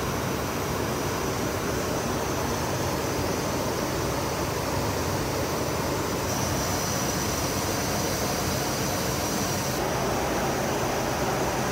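Steady flight-deck noise of an Embraer Legacy 600 business jet at cruise altitude: an even rush of airflow and engine hum, with a faint high whine over it.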